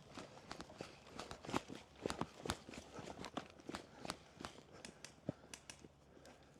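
Footsteps of a person walking, a string of irregular short clicks and knocks several times a second, a few louder knocks in the first half, thinning out near the end.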